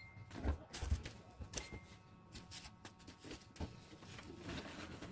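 Irregular clicks and light knocks, several a second at times, the loudest pair about half a second and a second in.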